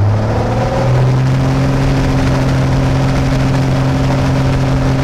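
Piper Cherokee Six's six-cylinder engine and propeller, heard from the cockpit, rising in pitch over about the first second as the throttle is opened to full power for a run-up, then holding steady at high RPM.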